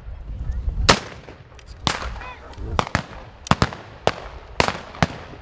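Scattered rifle shots fired with blanks in a staged battle: about seven sharp reports at irregular intervals, two of them in quick succession about halfway through.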